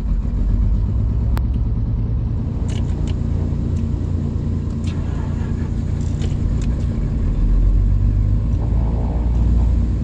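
Piper Aerostar 602P's twin piston engines running just after start, a steady low drone that gets somewhat louder about seven and a half seconds in; the engines fired up cleanly. A few light clicks sound over it.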